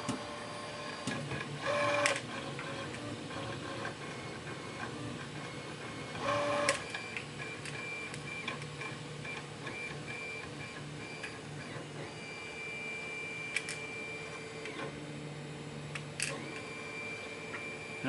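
Small metal clicks and scrapes of a brass lock cylinder and its pins being handled while it is reassembled, with a few sharp ticks and two short scraping bursts, over a steady hum.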